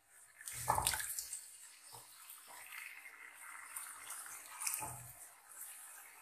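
Raw chicken pieces dropped into warm cooking oil in a nonstick karahi: a few soft thuds as they land, over a light hiss of sizzling oil.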